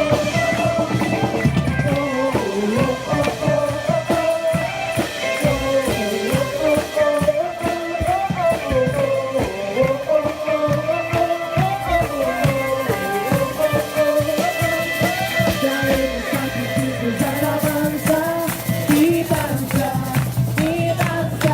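Music with singing over guitar and drums.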